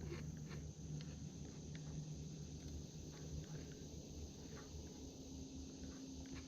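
Faint summer outdoor ambience: a steady high insect drone, with scattered faint clicks and rustles.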